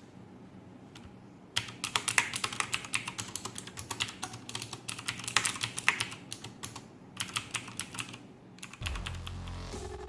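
Logitech G610 mechanical keyboard with Cherry MX Blue switches being typed on, a fast, dense run of clicky keystrokes starting about a second and a half in, over the steady hum of an air conditioner. Music comes in near the end as the typing stops.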